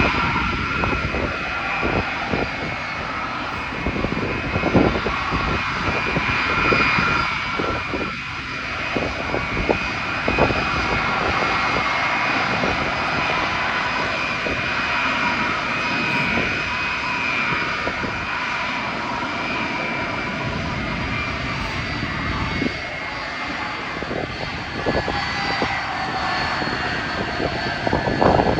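Boeing 747 Dreamlifter's four turbofan jet engines running at takeoff power: a steady, loud jet noise with a high fan whine.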